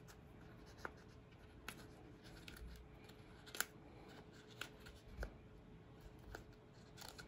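Small scissors snipping a leathery blood python eggshell: a few faint, scattered snips and clicks over a faint steady hum.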